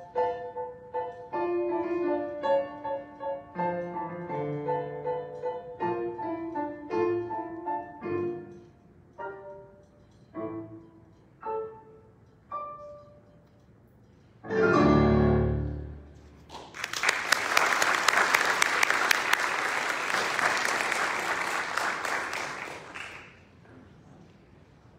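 Piano playing a slow piece whose notes thin out and slow, ending about fifteen seconds in on one loud, low final chord. The congregation then applauds for about six seconds.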